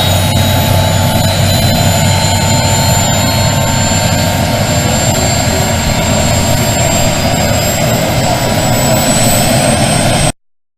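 Helicopter in flight: a loud, steady engine-and-rotor drone with high whines running through it, cutting off suddenly near the end.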